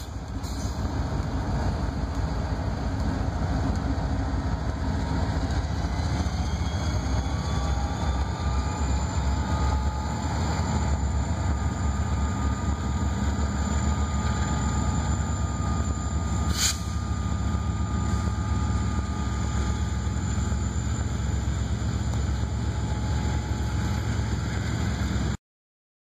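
Freight train passing close by: the trailing EMD SD40-2 diesel locomotive and the rolling tank cars behind it make a steady low rumble. Faint thin high tones run through the middle, and there is one sharp click about two-thirds through. The sound cuts off abruptly near the end.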